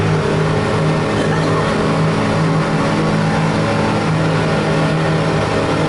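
Glass-bottom boat's engine running steadily under way, a constant low drone heard from inside the passenger cabin.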